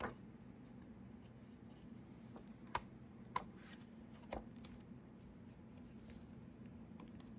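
Thick Stillman & Birn Delta Edition sketchbook paper being handled to show its weight by sound: four short crisp snaps, one right at the start and three spread between about two and a half and four and a half seconds in, over a faint steady hum.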